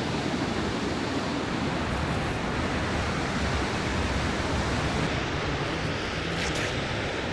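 Steady, dense rushing of a waterfall's falling water.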